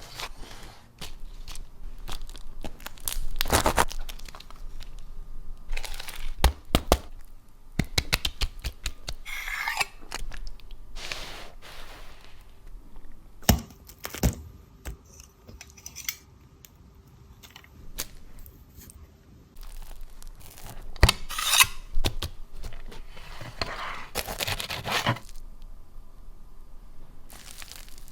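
Crusty sandwich bread crackling and tearing as sandwiches are cut and handled, in separate bursts with sharp clicks, knocks and scrapes between them. There is a quieter stretch about two-thirds of the way through.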